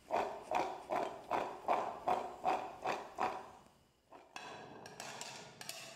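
Freshly boiled peanuts shaken in a steel strainer to drain them, a rhythmic knocking about two or three times a second. From about four seconds in comes a quieter, uneven clatter as the peanuts are tipped into a glass bowl.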